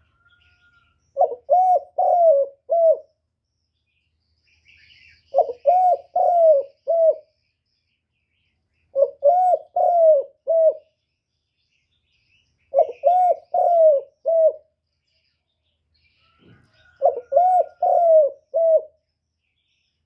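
Caged decoy spotted dove cooing: five phrases of four or five low coos each, repeated about every four seconds.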